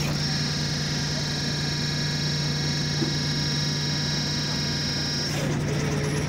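Tractor engine running steadily to power a hydraulic log splitter: a low, even drone with a thin high whine over it. The whine drops out about five seconds in, where the sound changes.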